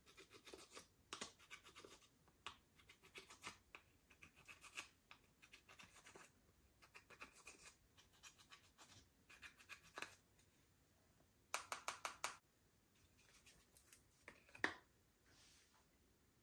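Quiet scratchy crackling in short, irregular bursts as makeup is worked into slime, with a denser run of rapid clicks about twelve seconds in.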